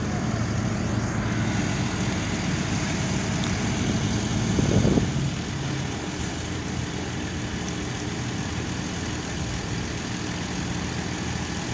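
Diesel engine of a Ferrari reach stacker running while it holds a heavy load on its boom. It revs up to a peak about five seconds in, then drops suddenly to a lower, steady run.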